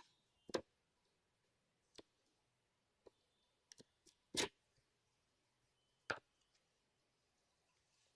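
Scattered sharp clicks and taps of product packaging being opened and handled, about eight in all, the loudest about four and a half and six seconds in.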